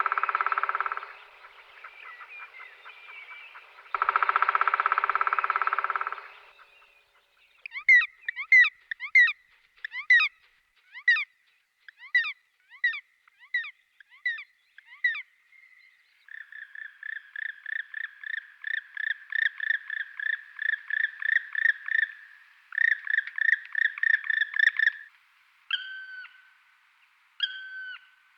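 Woodpecker sounds: two short bursts of rapid drumming, a string of quick falling call notes, then a fast run of repeated calls, and near the end three single sharp calls.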